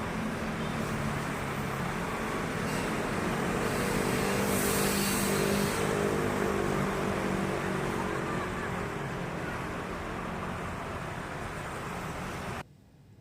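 Container freight train with its diesel locomotive running, a steady engine hum under the rumble of the passing train, with a brief hiss about four to six seconds in. The sound cuts off suddenly near the end.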